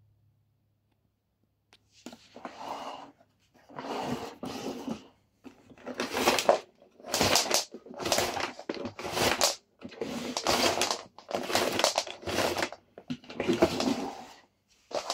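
Power cable being pulled out of a Philips Universe FC9004 vacuum's cable reel in about a dozen tugs, starting about two seconds in. Each tug is a burst of about a second as the reel turns and the cable slides out.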